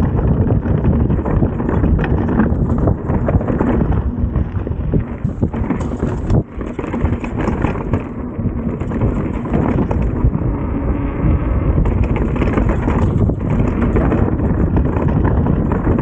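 Chainless mountain bike descending a rough trail: tyres rumbling and the bike rattling and knocking over rocks, with wind buffeting the camera microphone.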